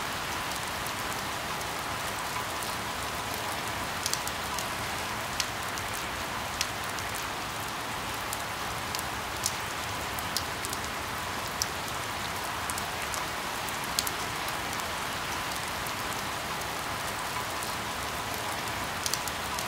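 Steady rain falling in an even hiss, with sharp ticks of single drops landing at irregular moments, roughly every second or so.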